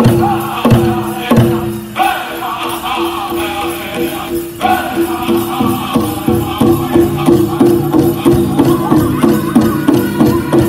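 Powwow drum group singing a men's chicken dance song over a big drum: a few heavy, spaced drum strokes near the start, then from about halfway a fast, steady drumbeat under the singing. Jingling from the dancers' bells rides along with the beat.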